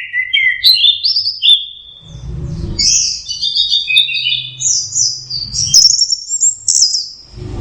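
Orange-headed thrush singing a rapid, varied song of whistled notes. It pauses briefly about a second and a half in, then runs on in a denser stream of high, quick notes over a low background rumble.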